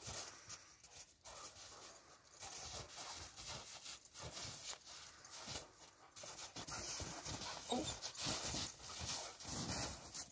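Two dogs play-fighting in snow, panting and scuffling, louder in the second half.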